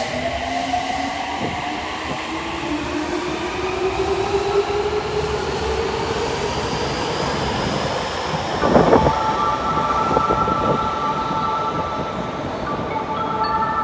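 A subway train's motors whine upward in pitch as it pulls away, fading out by about six seconds in. About nine seconds in comes a short clatter, then a steady electronic chime of several held tones that breaks off briefly near the end: the degraded chime of the platform screen doors.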